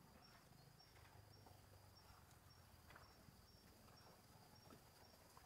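Near silence: faint forest ambience of insects, a steady high-pitched buzz with a faint chirp repeating about twice a second.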